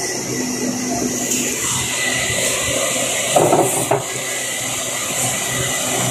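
Large evaporative air cooler's fan running with a steady rushing noise and a thin steady whine. A brief clatter of knocks about three and a half seconds in.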